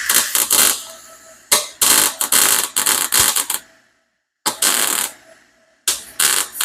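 Welding arc crackling and buzzing on a stainless steel exhaust header, laid down in several short bursts with brief pauses between them, filling in a gap in the weld.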